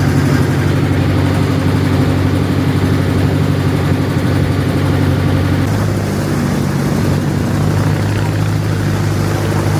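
Motorboat engine running steadily at cruising speed, its note shifting slightly a little past halfway.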